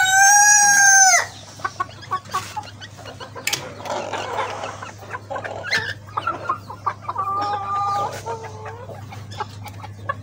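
A rooster crowing, the long held last note of the crow cutting off about a second in. Hens follow with scattered clucks and short calls.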